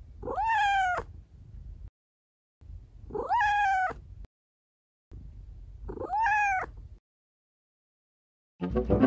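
Tabby-and-white kitten meowing three times, a few seconds apart, each meow clear and high, rising and then falling in pitch. Music starts near the end.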